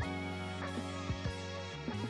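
Background music: held notes and a melody over a steady beat.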